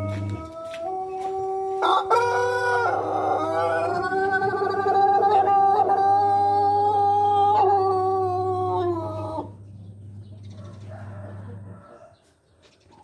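Pelung rooster giving one long crow of about eight seconds, rising near the start, held steady, then sliding down at the end: the drawn-out, melodious crow the breed is kept for.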